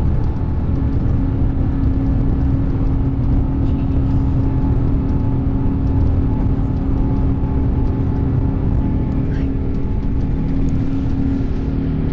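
Airbus A350-1000 airliner heard from the cabin: steady low rumble and drone from its Rolls-Royce Trent XWB engines. A steady hum sets in about a second in, and a second, lower hum joins near the end.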